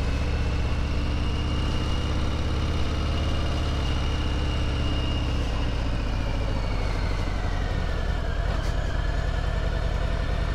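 Harley-Davidson Sport Glide's 107 cubic inch Milwaukee-Eight V-twin running steadily at low road speed, heard from on the bike. A faint high whine dips in pitch and comes back up a little past halfway.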